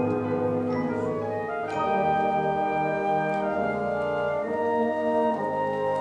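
A school wind ensemble playing slow held chords on woodwinds and brass, with the harmony shifting to new chords several times.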